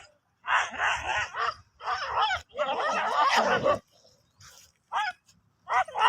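Street dogs fighting: loud bursts of growling and yelping, the longest about three seconds in, then two short cries near the end.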